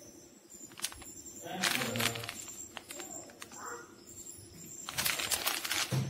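Plastic pouch crinkling as it is handled and turned over by hand, in two bursts about one and a half and five seconds in.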